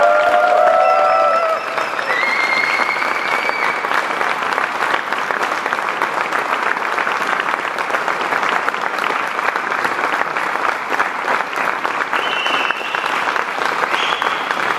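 A large audience clapping steadily, with a few high, held calls rising over the clapping in the first few seconds and again near the end.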